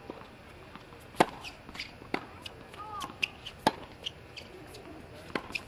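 Tennis balls struck by rackets and bouncing on the court: a string of sharp pops, the loudest about a second in, at two seconds and near four seconds, with short high squeaks between them.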